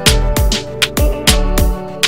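Background music with a steady beat of deep drum hits that drop in pitch, over sustained notes.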